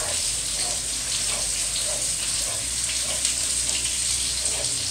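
Steady sizzling hiss of frying in the pans on the stove, with faint soft scrapes of a wooden spoon stirring thick tomato sauce.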